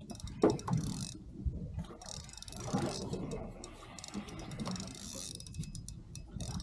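Fishing reel cranked in spurts, a rapid mechanical ticking from its gears, as a hooked snapper is wound in toward the boat.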